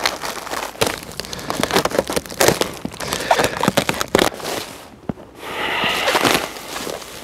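A plastic sack of wood pellets being handled and opened: irregular crinkling and crackling of the plastic film, with a brief lull about five seconds in.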